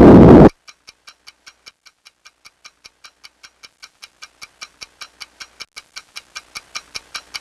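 A loud rushing noise cuts off suddenly about half a second in. It is followed by a clock ticking quickly, about five ticks a second, growing steadily louder.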